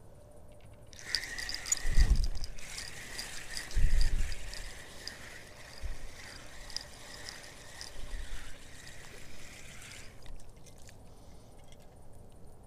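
Crickets chirping steadily, stopping abruptly near the end, with two dull low thumps about two and four seconds in.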